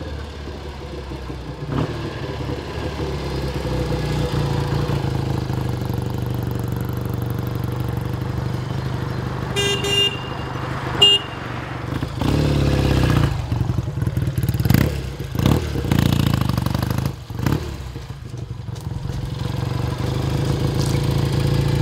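1965 BSA Lightning 650 parallel-twin engine, twin carburettors and dual exhausts, running as the bike is ridden out and back, its note growing louder as it nears. About halfway through there are two short horn beeps, then the engine revs up with several throttle blips before settling to a steady run.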